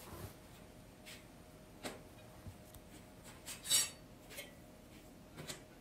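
Scattered light clinks and knocks of small steel parts being handled, with one louder metallic clatter a little past the middle, over a faint steady hum.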